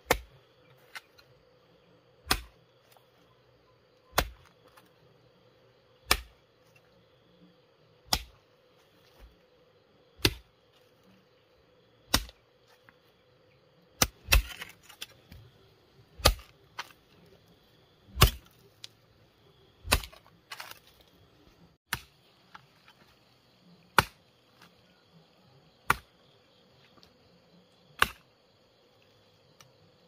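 A digging tool striking hard ground in a steady rhythm, one sharp strike about every two seconds.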